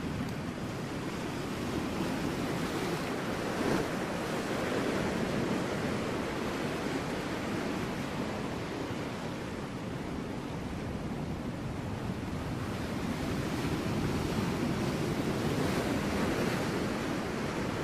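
Ocean waves breaking on rocks: a continuous rushing wash that swells and eases over several seconds, with a short louder splash a little under four seconds in.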